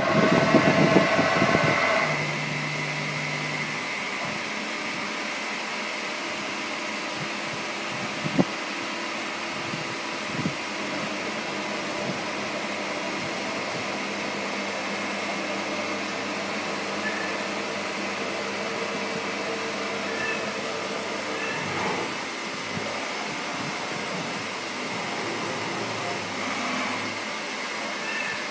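MAHO four-axis CNC universal milling machine running, a steady machine hum and whine with several tones that shift as its table and rotary axis move. It is louder for the first two seconds, and a few sharp clicks come partway through.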